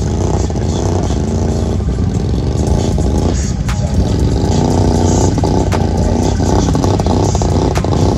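An ATV engine revs hard, its pitch rising and falling unevenly, while the quad sits stuck in a mud hole with its wheels spinning in the mud.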